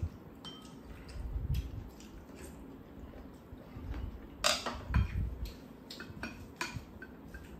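Utensils clinking and scraping against ceramic bowls during a meal: scattered light taps of chopsticks and spoons, with two sharper clinks about four and a half and five seconds in.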